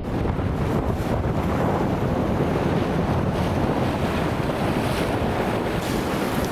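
Ocean surf washing steadily onto the beach, with wind buffeting the microphone and adding a low rumble.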